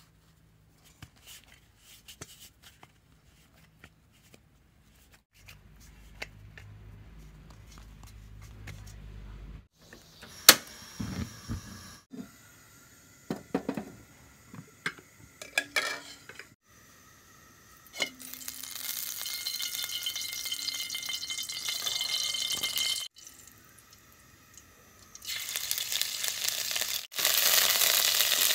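Steel pot and lid clanking and clinking as they are handled on a stovetop, with one loud clank. Then food sizzling in hot oil in the pot as a ladle stirs, the sizzle loudest near the end.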